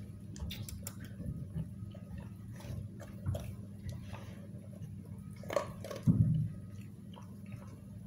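A pit bull chewing and crunching its food from a bowl, with irregular wet bites and clicks. A louder low thud comes about six seconds in, over a steady low hum.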